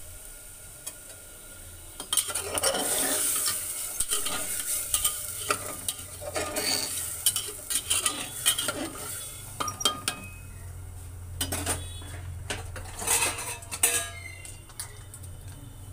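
Metal ladle stirring rice and water in a metal pressure cooker, starting about two seconds in: repeated scraping strokes with knocks and clinks against the pot's sides, the sharpest knocks near the end.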